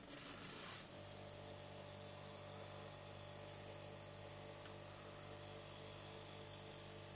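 Scanner stepper motor turning a model railway turntable: a short hiss in the first second, then a faint steady hum from about a second in as the motor steps the bridge round.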